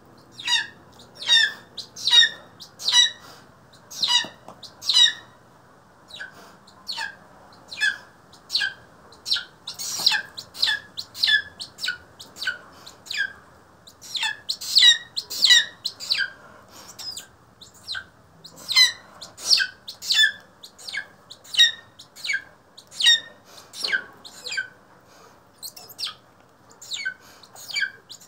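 Juvenile black-chested buzzard-eagle (Chilean eagle), eight months old, giving short, high, slightly falling calls over and over, about one to two a second, while it feeds on the glove.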